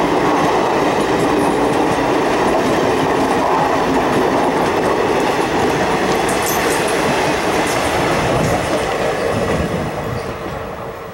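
Indian Railways passenger coaches rolling past close by: a steady rumble of wheels on the rails, growing quieter near the end.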